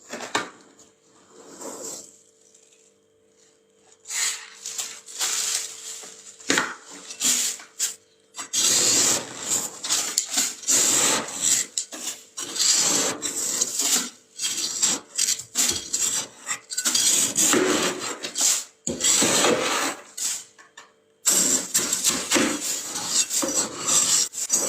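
Frost being scraped from a freezer in repeated scraping strokes. A few strokes come first, then a lull, and from about a third of the way in they come thick and fast, with a short break near the end.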